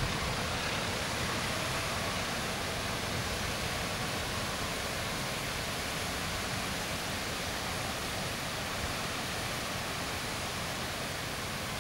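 A steady, even rushing noise with no distinct events or tones, easing slightly over time.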